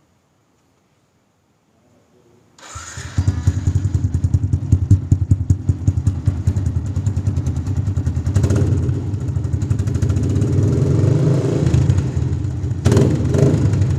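A Yamaha 135LC's single-cylinder four-stroke engine starts up about three seconds in and runs at idle through an aftermarket Akrapovic-branded open full-system exhaust, rising briefly twice with short blips of the throttle.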